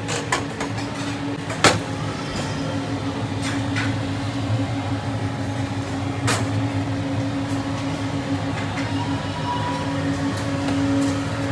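Steady low mechanical hum, with a few sharp clinks, the loudest about a second and a half in and another about six seconds in.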